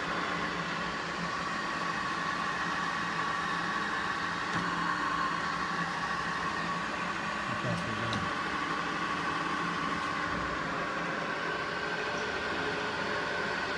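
20-inch Powermatic Model 1200 drill press running steadily: an even motor hum with a steady high whine.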